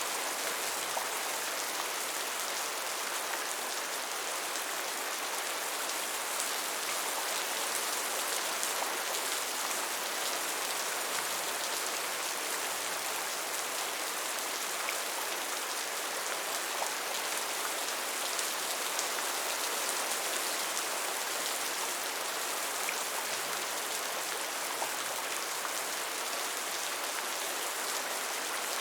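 Steady rainfall, an even hiss of many drops with a few faint individual drop ticks.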